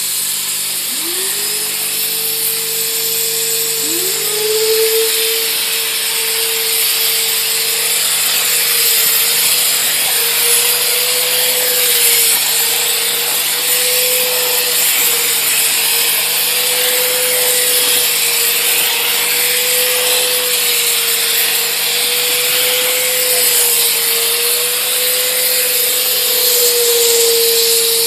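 The wet-and-dry vacuum motor of an electric steam cleaner spins up about a second in, spins up again about four seconds in, then runs with a steady whine that wavers slightly. Throughout there is a loud, steady hiss of steam and suction as a steam wand and a vacuum nozzle work a carpet.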